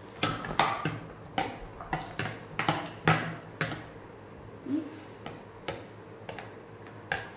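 A utensil knocking and clicking against a bowl as chopped salad ingredients are stirred, in irregular taps about one to two a second.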